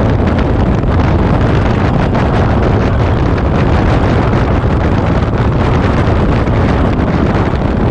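Steady wind noise buffeting the camera microphone on a motorcycle riding at road speed, mixed with the bike's running engine and tyres.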